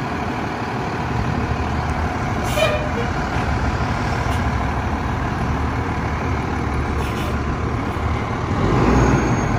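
Fire truck's diesel engine idling steadily in the firehouse bay, a low rumble throughout.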